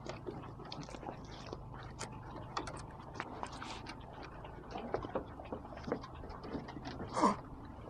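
A single short cough about seven seconds in, over faint, irregular ticks and clicks.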